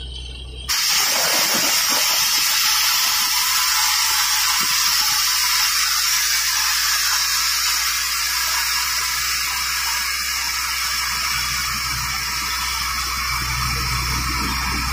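Borewell drilling rig blowing water and rock cuttings out of the well under its discharge hood: a loud, steady hissing gush that comes in suddenly about a second in, over the low hum of the rig's engine.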